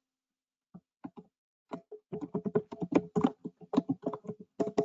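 Typing on a computer keyboard: a few scattered keystrokes, then a quick run of keypresses from about two seconds in.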